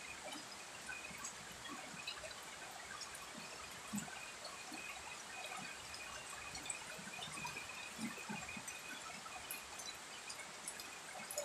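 Steady rain falling on garden plants and wet ground, with scattered drops ticking and splattering.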